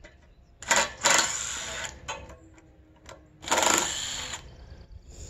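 Cordless drill/driver running in two short bursts, the first a little longer, as it drives screws into the log to fasten a ladder guide rail for milling.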